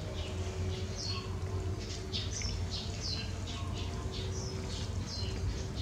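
Short, high, falling chirps, about two a second, over a steady low hum.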